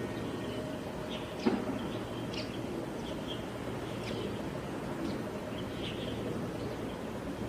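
Outdoor ambience: a steady low rumble, with short high chirps scattered every second or so and one sharp knock about a second and a half in.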